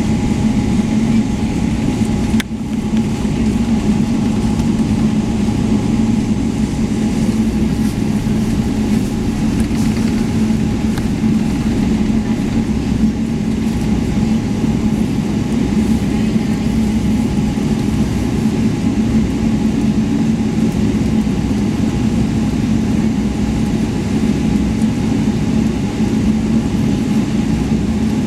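Steady cabin noise inside a Boeing 777-300ER: the even hum of its GE90 engines and rushing air, with a brief click about two and a half seconds in.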